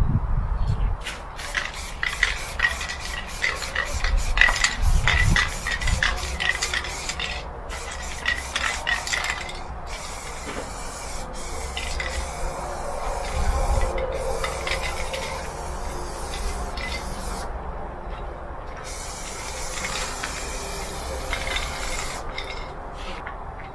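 Aerosol spray paint can, first with its mixing ball rattling in quick clicks for several seconds, then spraying in hissing bursts broken by short pauses.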